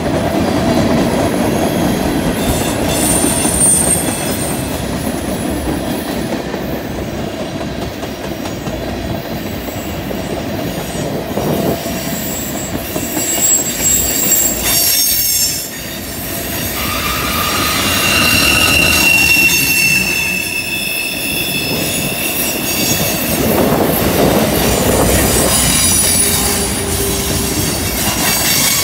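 Freight train's tank cars and covered hoppers rolling past on curved track: a steady rumble of steel wheels on the rails, with high flange squeals from the wheels grinding through the curve that come and go several times.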